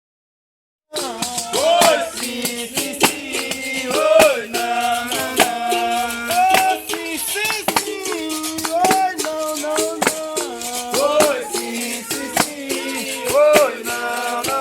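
Capoeira Regional charanga starting up about a second in: berimbau playing a rhythmic toque, stepping between its notes with wah-like bends from the gourd, against the rattle of a caxixi shaker and sharp percussive strokes.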